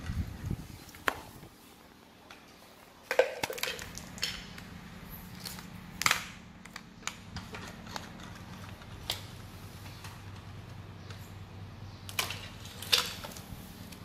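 Plastic toys and building blocks knocking and clacking together now and then as they are handled: a handful of sharp, separate clacks spread irregularly over the seconds, with a faint steady hum underneath.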